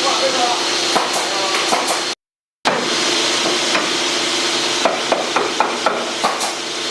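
Steady machine hiss and hum on a carpentry job, with a quick series of sharp knocks about five to six seconds in as wood is fastened. The sound cuts out briefly about two seconds in.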